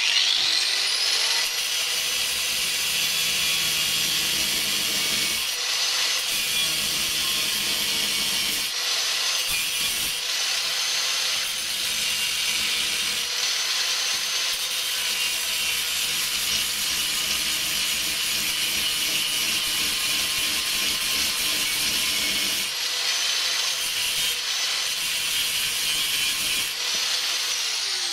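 Angle grinder spinning up, then running steadily while cutting into the metal body of a solenoid, with a few brief dips in load, and starting to wind down at the very end.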